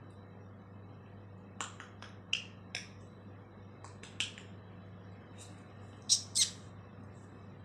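African grey parrot giving a string of about a dozen short, sharp calls in irregular bursts, the loudest two close together near the end.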